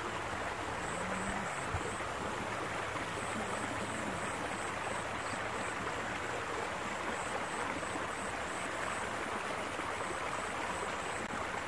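Steady rush of water running in a stone-lined irrigation canal.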